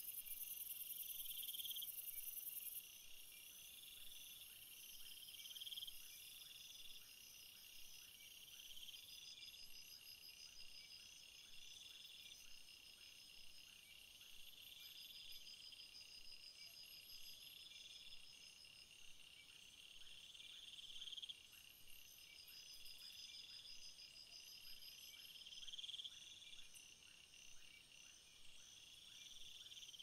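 Faint chorus of insects, crickets by their sound: several high-pitched trills overlapping and repeating at an even pace, with a sudden drop in level about three seconds in.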